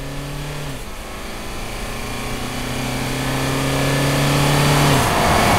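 Mercedes-Benz GLB 200 d 4MATIC, a four-cylinder diesel SUV, driving at full throttle toward and past; its engine and tyre noise grows steadily louder to a peak near the end as it goes by. A steady hum runs underneath and drops slightly in pitch about a second in.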